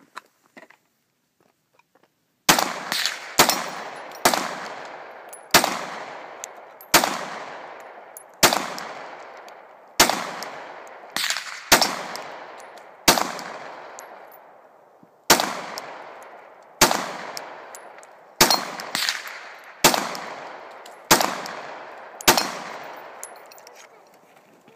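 Glock 19 9mm pistol fired in a slow string of about fifteen shots, starting about two and a half seconds in. The shots come roughly one to one and a half seconds apart, and each sharp crack trails off in a long echo.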